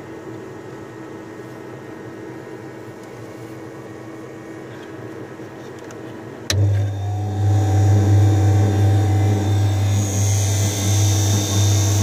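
A faint steady electric hum, then a click about six and a half seconds in as a mains-powered device switches on and runs with a loud, steady low hum.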